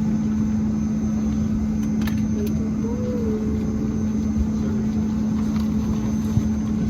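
Steady drone inside a small airliner's cabin from its running engines, a constant hum with one strong low tone over a rumble, and a faint click about two seconds in.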